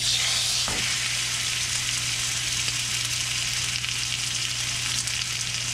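T-bone steak sizzling in hot oil in a frying pan. The sizzle starts suddenly as the steak goes into the pan and then runs steadily.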